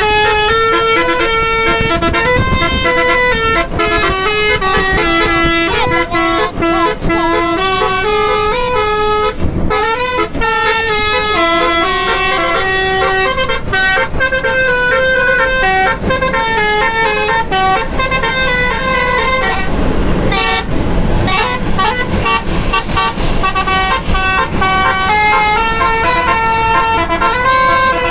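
A bus's telolet horn, a multi-tone musical horn, playing a long run of quick stepped melodies, the notes changing several times a second, over the bus engine's rumble. The tune drops out briefly about two thirds of the way in, then resumes.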